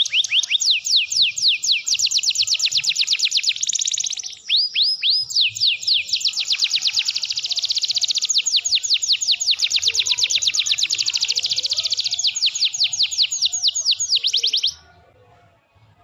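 Domestic canary singing a long, rapid trill of high falling notes, breaking into a few slower, separate sweeping notes about four to six seconds in before the fast trill resumes. The song stops abruptly near the end.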